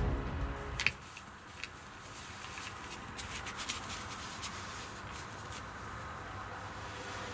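Background music ending about a second in, then quiet outdoor ambience with faint scattered rustles and ticks.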